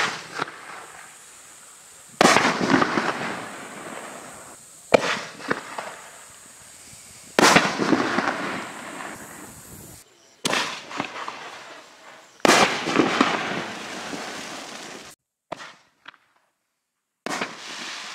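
Six-shot 6-inch tiger-tail-to-break firework cake firing: shells launch with a sharp bang and burst in the air about two seconds later. Each burst leaves a noisy tail that fades over a second or two.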